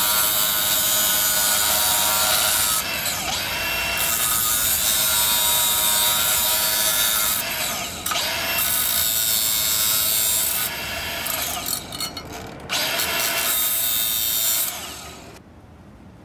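Electric angle grinder with an abrasive disc grinding a steel bar, the motor whining steadily under load. The sound eases off and comes back a few times as the pressure changes, then stops about fifteen seconds in.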